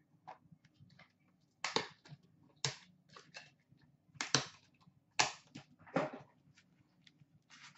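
A hockey card box opened by hand: its lid is lifted off and the packaging inside is handled. Light clicks and taps, with about five louder scrapes and rustles spread through.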